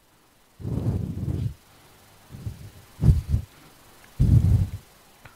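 Handheld microphone held at the mouth picking up breath puffs and handling noise. Four muffled, low-pitched bursts, each under a second long.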